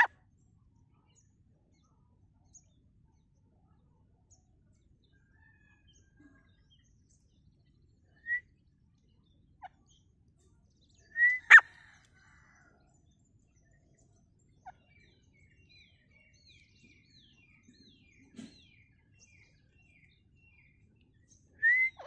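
Grey francolin giving a few short, rising call notes, spaced several seconds apart, with a sharp click just after the loudest one. A run of faint, high bird chirps in the background in the second half.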